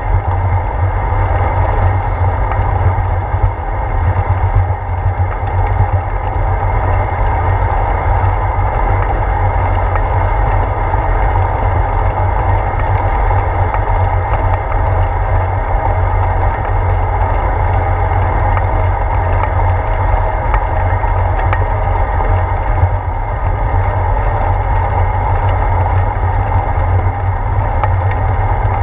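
Steady rush of wind and road rumble picked up by a handlebar-mounted GoPro Hero 4 on a bicycle riding along a wet road.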